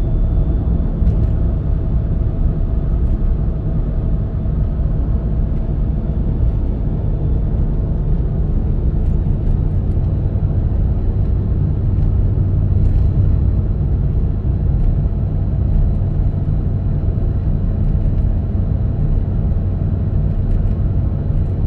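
Car driving along a motorway: a steady low rumble of tyres on the road surface with engine hum.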